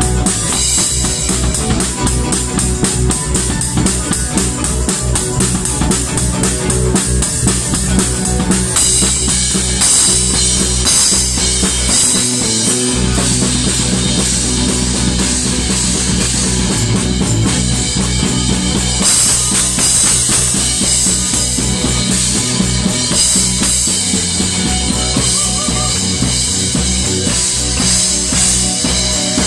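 Live funk-rock band playing loud, with drum kit, cymbals and electric guitar over a driving beat.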